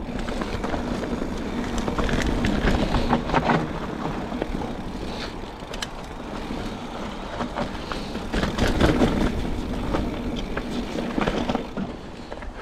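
Mountain bike tyres rolling over a dirt and gravel track, a steady rough rumble with scattered rattles and knocks from the bike, swelling louder twice.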